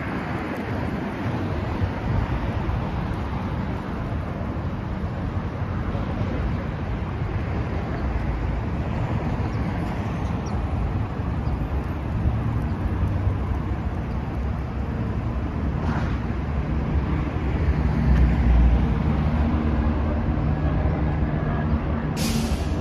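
Steady city street traffic: cars passing on a multi-lane street, with engine and tyre rumble that gets heavier in the second half. A short high hiss sounds near the end.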